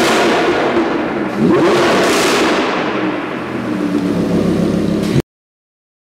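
Lamborghini Huracán LP610-4's V10 revving loudly through a Fi valvetronic catback exhaust with the valves open. A quick rev rises about one and a half seconds in, then the engine settles back toward idle before the sound cuts off suddenly about five seconds in.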